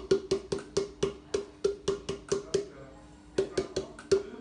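Rapid knocking on a stainless steel mixing bowl, each knock ringing briefly, as apricot purée is knocked out of a blender beaker into it. About four knocks a second, with a short pause about two and a half seconds in.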